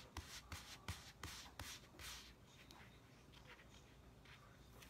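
Faint handling noise of hands rubbing and tapping on a fabric cloth: a string of soft clicks about every third of a second in the first two seconds, then near silence.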